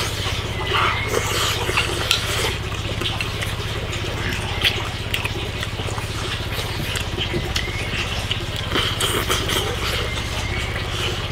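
Two people eating rice and meat from bowls: chewing and slurping, with chopsticks clicking against the bowls, over a steady low hum.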